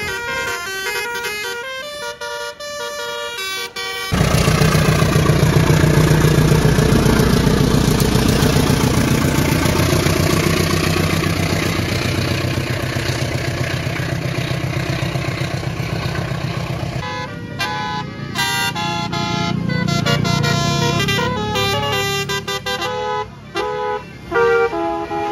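Basuri telolet multi-tone bus horn playing a tune in quick stepped notes. About four seconds in it gives way to a loud, long stretch of heavy engine rumble and noise as a bus passes close, and near the end the horn melody comes back over the engine.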